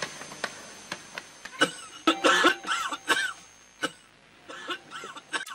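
Several short coughs and pained vocal sounds from prisoner figures, part of a dramatized prison-cell soundtrack, with a few sharp knocks in the first second and a half.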